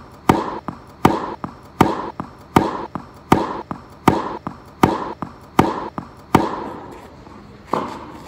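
Tennis ball impacts: a regular run of sharp pops, about one every three-quarters of a second, some with a lighter tick just before. They stop about six and a half seconds in, and one more comes near the end.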